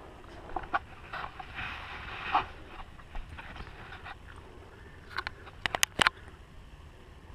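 Handling noise from a camera being moved about: scattered light knocks and clicks, then a quick run of sharp clicks about five to six seconds in, over a faint background hiss.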